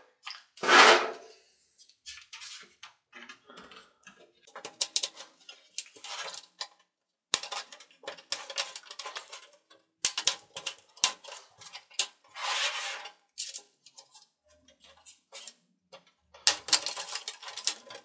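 Plastic guitar pick scraping and prying along the edge of a ThinkPad X230T laptop's plastic trim piece: irregular clicks, taps and short scrapes of plastic on plastic, with pauses between them.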